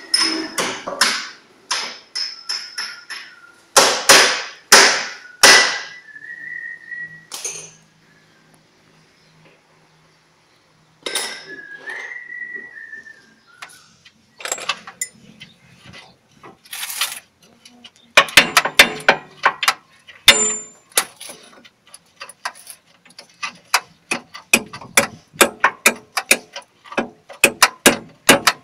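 Hammer blows and steel clanks from tools working on a truck's front leaf-spring mounting, with a dense run of quick taps and clicks in the last third. A short whistle is heard twice, about six and twelve seconds in.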